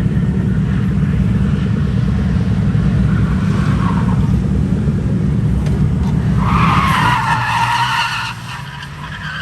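A drift car's engine running loud and rough, with tyres squealing for about a second and a half near the end, after which the engine noise drops away.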